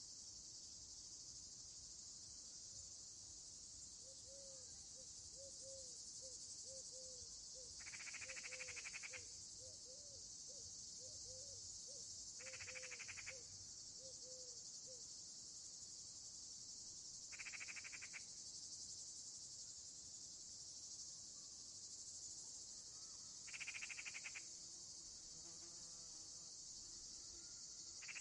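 Evening insect chorus: crickets trilling steadily and high, with a louder, rapidly pulsed trill of about a second repeating roughly every five seconds. Through the first half a run of soft, low, quickly repeated notes sounds underneath.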